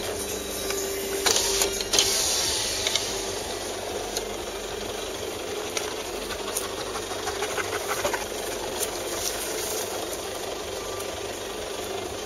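The Toyota Hilux's 3.0 D-4D four-cylinder turbodiesel idling with a steady diesel clatter. There are a few sharp clicks and knocks in the first three seconds.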